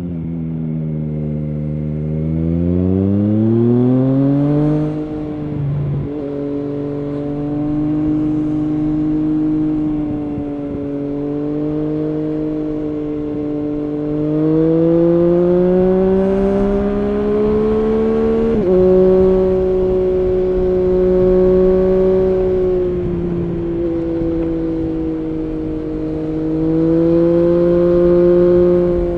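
Triumph Street Triple S three-cylinder engine through an SC-Project SC1-R slip-on exhaust with dB-killer, heard while riding: it revs up under acceleration, drops in pitch at an upshift about five seconds in, cruises steadily, pulls up again and shifts once more a little past halfway, then builds revs again near the end.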